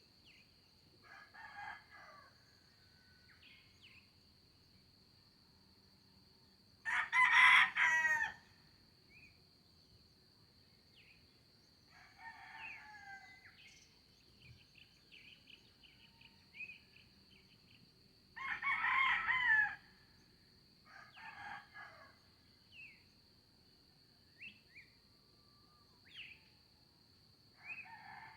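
Roosters crowing: two loud crows about eleven seconds apart, with fainter crows from other roosters and short chirps of small birds in between.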